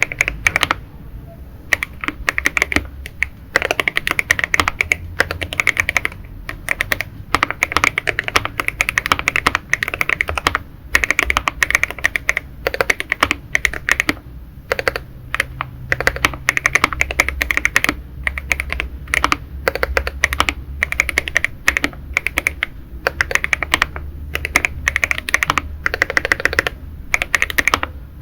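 Typing on a Monsgeek M1 aluminium mechanical keyboard with Leobog Nimbus linear switches, foam- and tape-modded: fast runs of keystrokes, each a sharp clack, broken by brief pauses.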